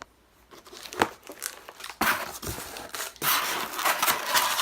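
Packing material being handled and crinkled while a boxed 3D printer kit is unpacked: a sharp click about a second in, then longer bursts of rustling from about two seconds on.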